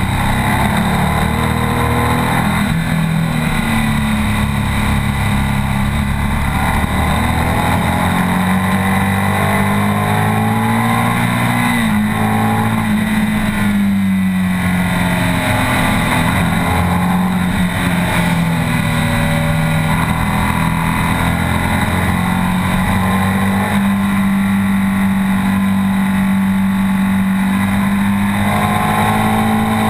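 BMW R 1200 S's boxer twin engine running hard on track, its pitch climbing and falling again and again as the bike accelerates and slows through the corners, heard from on board under heavy wind rush.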